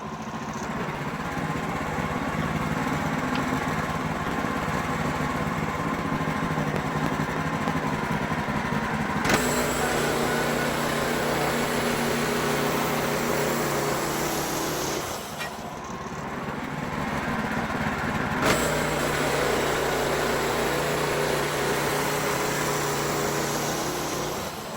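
WoodMizer LX55 band sawmill running steadily while sawing a pine log into boards. The sound shifts to a brighter, busier tone about nine seconds in, dips briefly around fifteen seconds, and picks up again at about eighteen seconds.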